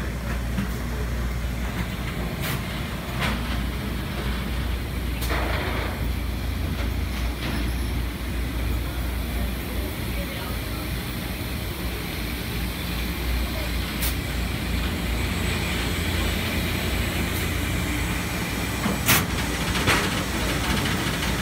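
Steady low rumble and hum of industrial laundry machinery in a ship's laundry, with a few sharp clacks scattered through, the loudest one near the end.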